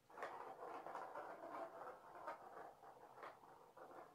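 A kitten playing at a round plastic ball-track toy: an irregular rolling, scraping rattle that starts suddenly, with a few sharp clicks.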